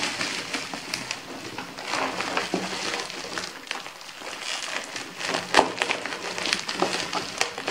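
Thick bubble wrap and plastic packing tape crinkling and crackling as a utility-knife blade cuts them open, with irregular sharp clicks, the sharpest a little after five and a half seconds in.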